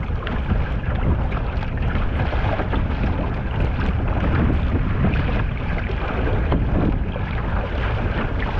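Viking Crayfish 440 sea kayak being paddled over choppy water: the blades splash with each stroke and water rushes along the hull, under a steady rumble of wind buffeting the microphone.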